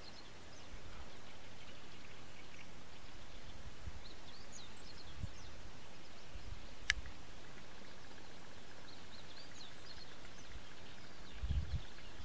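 Steady open-air background hiss with faint, scattered small-bird chirps in two brief clusters, one sharp click about seven seconds in, and a few low bumps near the end.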